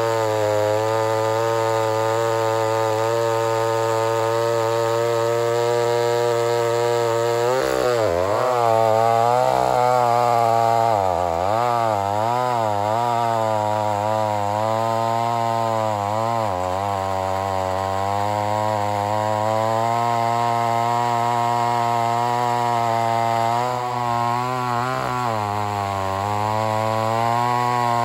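Vintage 68cc Lombard two-stroke chainsaw running at high throttle while bucking a large log. Its engine pitch holds steady at first, then from about eight seconds in dips and recovers again and again, and once more near the end, as the chain loads up in the cut.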